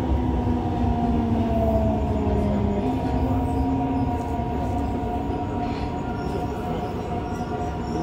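Running sound of a Yokohama Blue Line 3000A subway car with Mitsubishi GTO-VVVF inverter control, heard from inside the car: the motor and inverter whine glides steadily down in pitch over the rumble of the wheels as the train slows. About three seconds in, one low tone jumps up in pitch, an inverter mode change.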